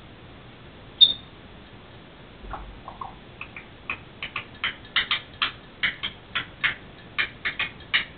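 African grey parrot vocalising: one sharp, high whistle-like squeak about a second in, then a rapid run of short squeaky chirps, two or three a second, that grows louder toward the end.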